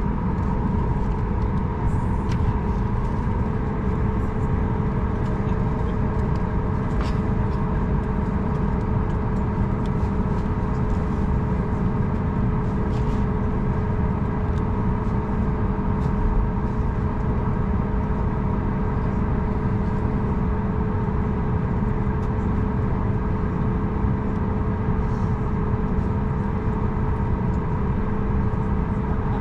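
Cabin noise of a Boeing 737 MAX 9 on the ground, its CFM LEAP-1B engines running at idle: a steady low rumble with a few steady hum tones over it.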